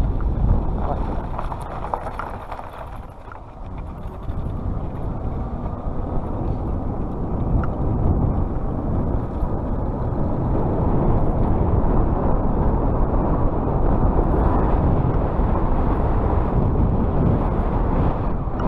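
Wind rushing over the microphone while riding the e-bike. The rushing eases about three seconds in, then builds back up and holds.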